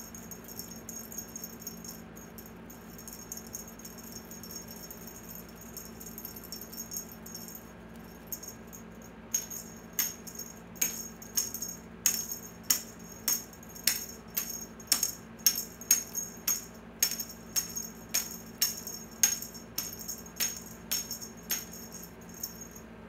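Small jingle bells on a cat's wand toy jingling, gently at first, then in sharp shakes about twice a second from about nine seconds in.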